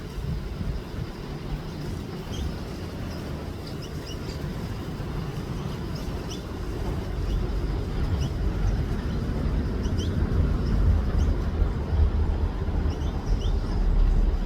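Small birds giving short high chirps, scattered throughout, over a steady low rumble that grows louder past the middle.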